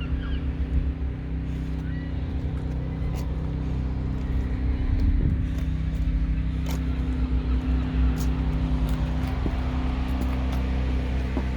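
Pressure washer engine running steadily, a constant low hum with a few sharp clicks over it.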